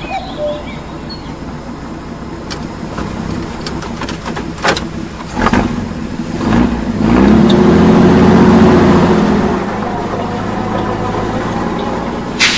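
Truck engine running, with a couple of sharp knocks before it revs up loudly for a few seconds midway and then settles back to a steady run.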